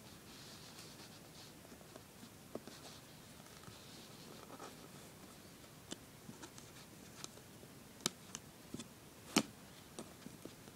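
Faint rustling and scraping of fabric loops being woven over and under by hand on a plastic potholder loom, with scattered sharp clicks and taps, the loudest about eight and nine and a half seconds in.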